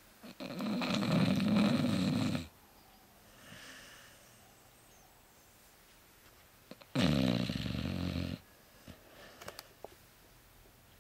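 A sleeping dog snoring: two loud snores about five seconds apart, each lasting one to two seconds, with a faint breath out between them.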